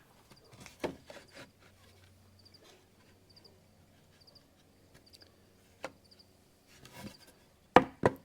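Wooden fence boards handled and set down: a few soft knocks, then several sharp wooden knocks close together near the end.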